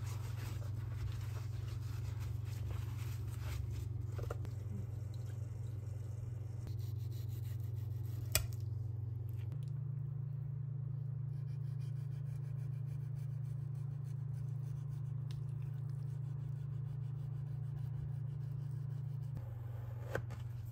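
Soft rubbing and scraping of gloved hands working paper towel and raw tuna, and a kitchen knife cutting tuna on a cutting board, with one sharp click about eight seconds in. A steady low hum runs underneath and shifts in pitch twice.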